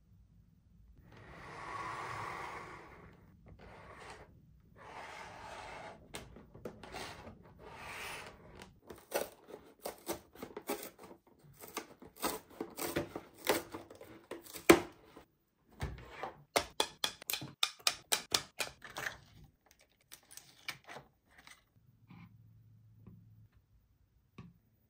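Hands unpacking toys: a few seconds of rustling packaging, then a string of sharp clicks and taps, with a quick run of about four clicks a second a little past the middle.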